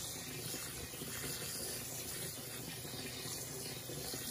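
Kitchen faucet running in a steady stream onto konjac rice in a stainless steel colander, rinsing the rice in the sink.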